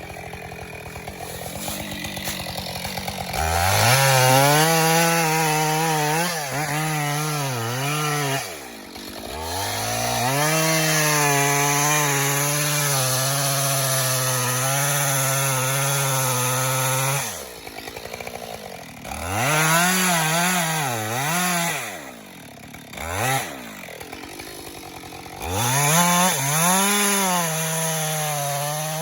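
Two-stroke Husqvarna chainsaw cutting wood: it idles, goes to full throttle a few seconds in, and its pitch wavers and sags under load in the cut. It drops back to idle and revs up again several times.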